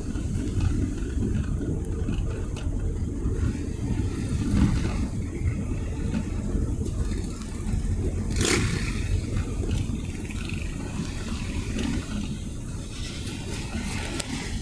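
Car driving, a steady low rumble of engine and road noise, with one sharp click about eight and a half seconds in.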